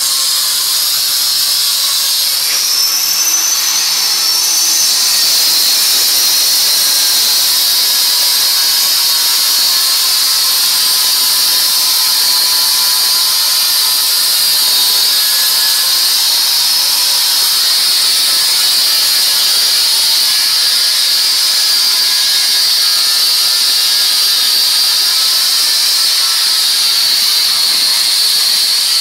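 Handheld power cutter running continuously as it cuts stone, giving a loud, steady, high-pitched whine.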